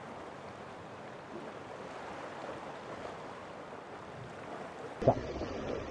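Sea surf washing against a rocky shore, a steady even hiss. About five seconds in it turns louder, with a sudden thump.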